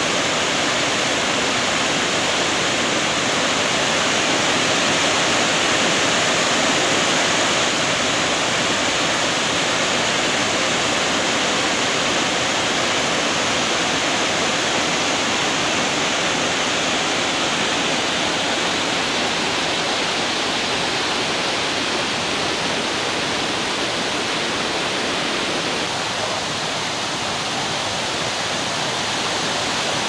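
Waterfall pouring: a loud, steady rush of falling water.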